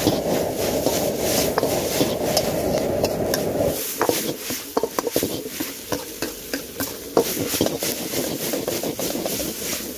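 Metal Chinese ladle scraping and clinking against a carbon-steel wok as noodles are stir-fried, with sizzling. A steady low roar runs under it and cuts off about four seconds in.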